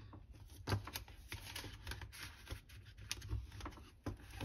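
Paper dollar bills being handled and slipped into a clear plastic binder pocket: soft, irregular clicks and rustles.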